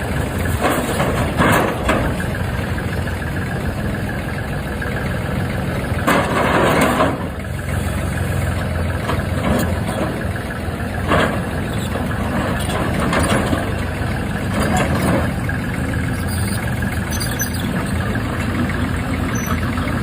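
Heavy machinery engine running steadily at a low, even pitch, with several short bursts of noise over it, the longest about six seconds in.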